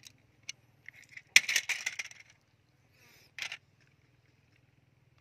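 Hard plastic toy trucks clicking and clattering against each other and the wooden planks as they are picked up and moved, with a louder burst of rattling about a second and a half in and one sharp knock a little later.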